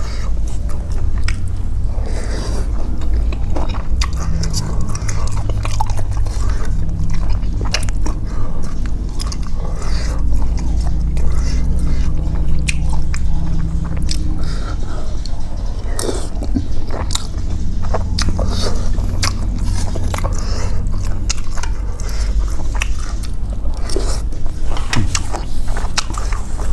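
A person chewing and eating a bowl of pork noodle soup with instant noodles and pork meatballs: irregular wet smacks and small clicks throughout, over a steady low hum.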